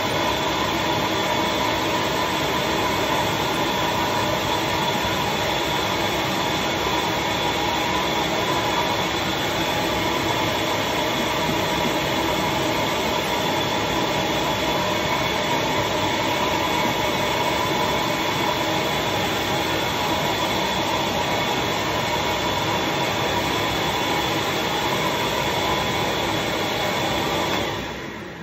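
Vacuum motor running steadily, loud and unchanging, drawing paper pulp down onto the comic's wrap during leafcasting; it is switched off near the end.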